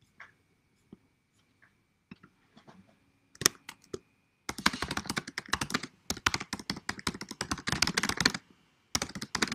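Typing on a computer keyboard close to the microphone: a few scattered key clicks at first, then a long run of fast typing from about four and a half seconds in, a brief pause, and more fast typing near the end.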